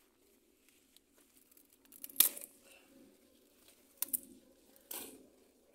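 Three brief rustling, tearing sounds close to the microphone, like leaves and stems being handled. The loudest comes about two seconds in, the others about four and five seconds in.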